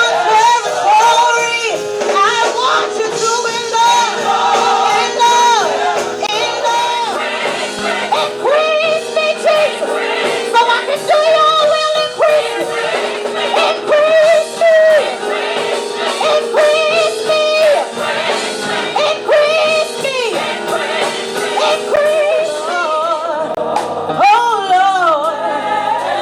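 A gospel vocal group singing, several voices holding notes together in harmony.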